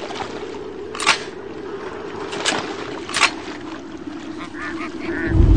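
Ducks quacking in a quick series a little over four seconds in, over a steady windy hiss. Three short, sharp sounds come earlier, and a deep rumble swells in right at the end.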